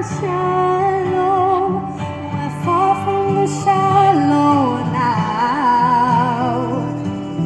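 Music: a song with a long sung melody line, wavering with vibrato, over a steady bass line. The music thins out near the end.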